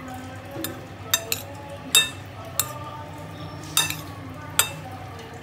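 A metal spoon stirring macaroni and beans in a glass bowl, striking the glass in about six sharp, ringing clinks at uneven intervals.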